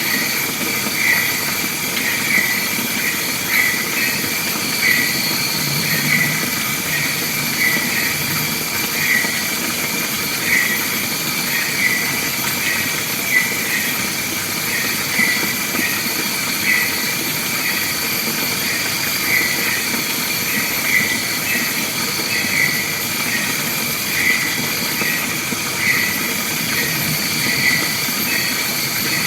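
Wild forest soundscape: a short, high call repeating about once a second, over a steady high-pitched insect drone.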